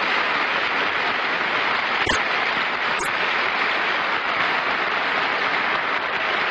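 Studio audience applauding loudly and steadily: the big reception for a mystery guest they know on sight.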